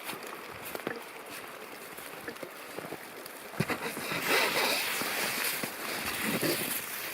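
Footsteps crunching in fresh snow, louder and uneven from about three and a half seconds in, over the steady rush of a swollen stream spilling over its banks.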